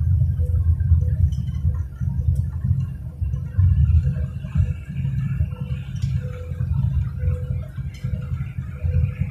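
Low, uneven rumble of a car travelling at highway speed, heard from inside the cabin: road and engine noise.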